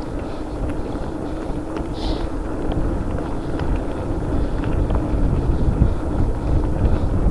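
Mountain bike being ridden along a trail: wind buffeting the microphone over a steady rumble of tyres on the ground, with scattered small clicks and rattles from the bike.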